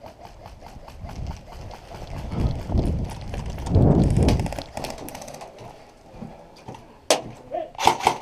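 Footsteps of an airsoft player on the move, about four steps a second, with low rumbling movement noise on a body-worn microphone. Near the end, a sharp crack, then a quick string of about six sharp cracks: airsoft gunfire.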